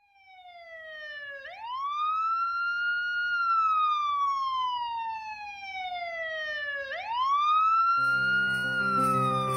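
Police siren wailing, fading in from silence: its pitch climbs quickly and then slides slowly down, twice. Christmas music with jingle bells comes in near the end.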